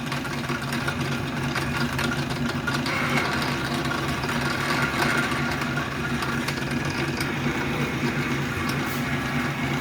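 Old South Bend lathe, about 80 years old, running steadily in back gear, with a steady motor and gear hum while a drill bit cuts a hole into a 1-inch blank.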